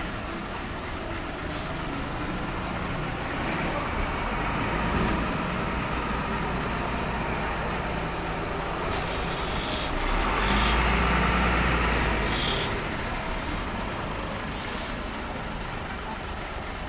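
A motor vehicle engine rumbling steadily, swelling louder for about two seconds roughly ten seconds in, with a few sharp clicks.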